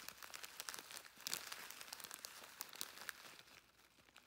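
Faint crinkling of a clear plastic zip bag of dried rose petals as hands handle it, a run of small crackles that thins out and quietens near the end.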